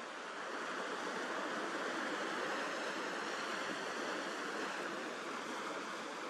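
Sea surf washing with no bird call, a steady rush of water that swells over the first couple of seconds and eases off a little near the end.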